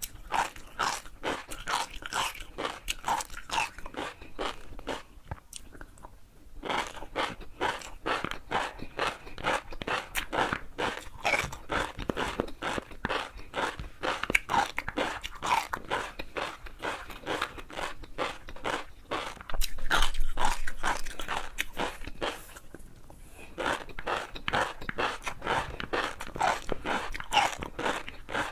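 Close-miked chewing of crunchy food: dense, rapid crackling crunches, with two brief pauses, one about six seconds in and one near the end.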